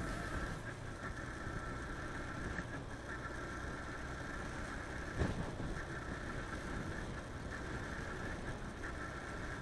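Motorcycle engine running at a steady cruising pace, with road and wind noise; a single short thump about five seconds in.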